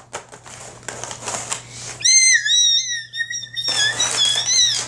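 Rustle and clicks from the camera being handled, then about two seconds in a high, wavering whistle-like squeal that lasts until just before the end.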